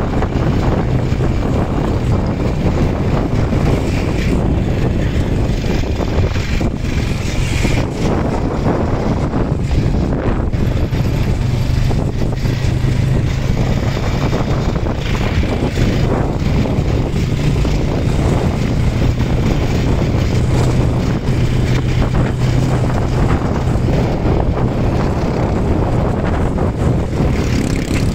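Vehicle engine running at a steady speed with a constant low hum, under heavy wind noise on the microphone, as when riding along.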